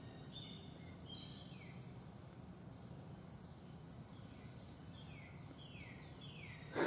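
Quiet outdoor background: a bird calling in short falling chirps, repeated more often in the second half, over a low steady hum. A brief louder sound comes right at the end.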